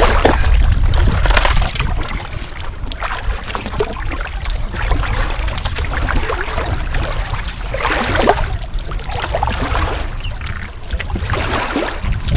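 Kayak paddle strokes in river water: the blades dip and splash, with dripping between strokes, a stroke every couple of seconds.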